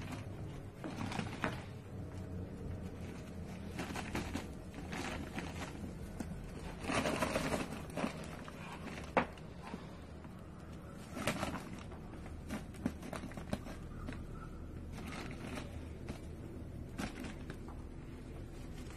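A cat digging and pawing in snow on a crumpled plastic sheet: irregular crunching and rustling with scattered sharp clicks. A longer crunching scrape comes about seven seconds in, and another about eleven seconds in.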